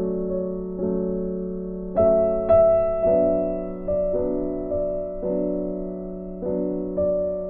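Background music: slow, soft piano, with notes and chords struck about once a second and left to fade.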